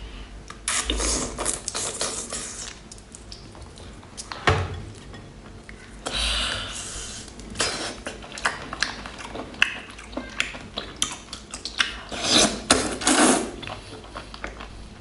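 Close-up eating sounds: noodles slurped in several noisy bursts, with chewing and many light clicks of chopsticks against a bowl.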